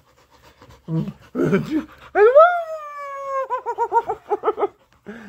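Large boxer-type dog vocalising: one long whining howl that rises sharply and then slowly sinks, breaking into a quick warbling run of short 'woo' yelps.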